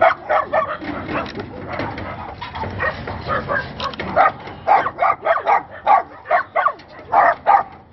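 Several dogs barking, short sharp barks overlapping, becoming a steady run of loud barks at about two to three a second in the second half.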